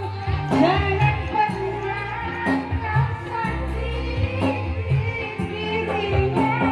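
A woman singing a melody into a microphone over a live band played through a PA: bass notes, keyboard and a steady beat.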